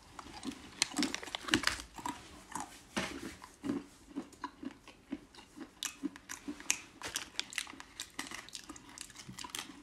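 A mouthful of spicy nuts being chewed: an irregular series of short crunches, several a second.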